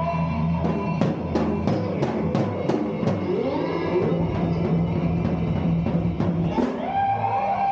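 An instrumental rock band plays electric guitars through effects pedals over a drum kit. Drum strokes come at about three a second in the first few seconds, under held guitar notes and notes that slide up in pitch. About seven seconds in, a long steady guitar note begins.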